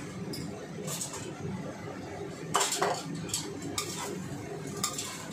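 Chopsticks and a utensil knocking and scraping against a stainless steel wok as noodles are tossed and stirred, with several sharp clinks, the loudest a pair about two and a half seconds in, over a steady low background noise.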